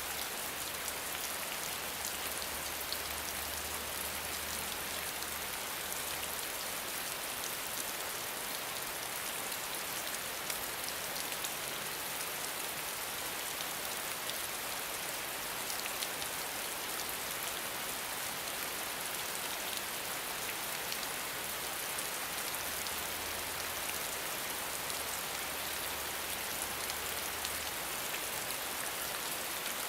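Steady rain falling: an even hiss with scattered drop ticks. A faint low hum comes in during the first few seconds and again near the end.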